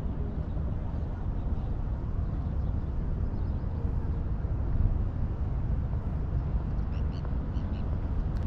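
Outdoor street ambience: a steady low rumble, with a few faint high chirps about seven seconds in.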